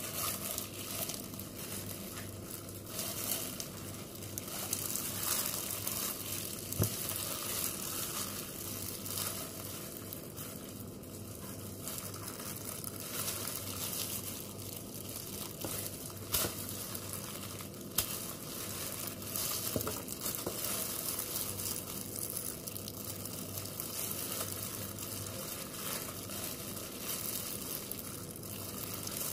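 Clear disposable plastic gloves crinkling and rustling while gloved hands rub garlic under the skin of a raw whole chicken, with wet squishing of the meat and now and then a sharper click.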